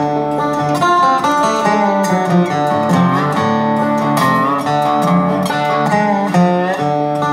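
Background music led by acoustic guitar, strummed and plucked at a steady level.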